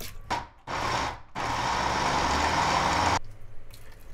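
Countertop blender grinding soaked mung beans and rice with a little water into a coarse batter. It runs in a short burst of about half a second, then in a steady run of about two seconds that cuts off suddenly.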